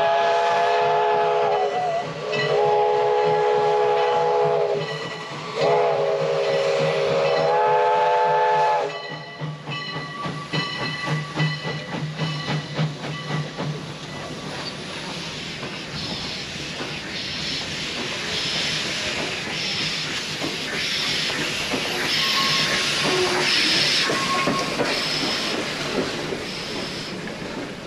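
Steam locomotive's chime whistle sounding three long blasts, each a chord of several notes. The train then gets under way, with dense clicking and clanking and hissing steam that comes in regular bursts about once a second.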